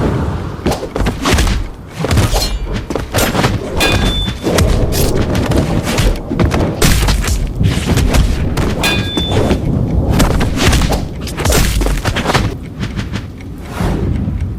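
Dense layered sound effects for an animated action scene: a rapid run of thuds, booms and crashes, with a short high beep twice. The sound cuts off abruptly at the end.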